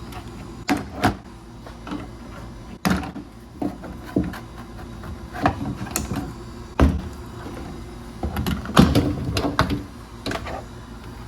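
Plastic interior trim panels on an SUV's rear door being handled and pried off: irregular clicks, knocks and rattles, with a few louder knocks about a second in, around three seconds in and near nine seconds in.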